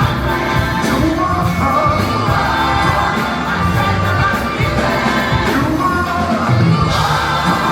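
Live gospel worship music: singing over a full band with a steady drum beat.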